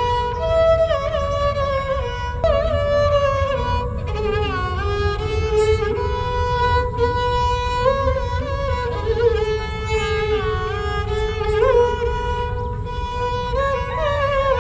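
Sarangi played solo with the bow: a single melody with slides between notes and wavering held notes, over a steady low rumble.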